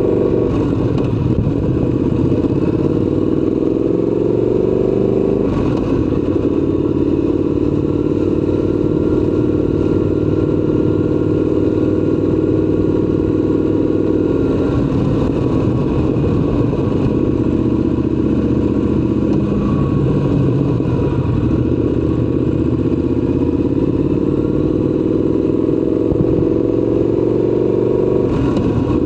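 Triumph Scrambler 1200 XC's parallel-twin engine running under way, its note climbing and settling as the bike moves through traffic. The pitch changes abruptly about five seconds in, again near the middle, and just before the end, like gear changes.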